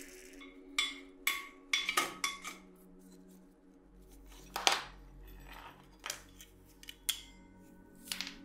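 Sharp metal clicks and clinks, a few scattered through and one loudest near the middle, as steel locking pliers grip and work a seized metal fitting on an old kettle to loosen its lid, over soft background music with steady tones.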